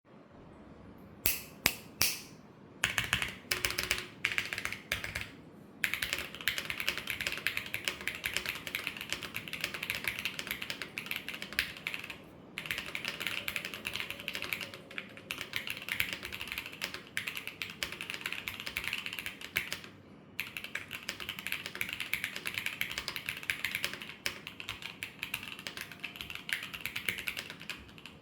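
Typing on a Fuji 65 SE mechanical keyboard with linear Gateron Yellow Pro switches on a black aluminium plate with a carbon-fibre backplate. It starts with a few single key presses, then goes into fast continuous typing with two short pauses.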